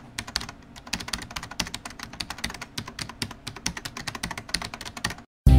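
Rapid typing on a keyboard: a dense, uneven stream of key clicks, about ten a second, that stops abruptly near the end.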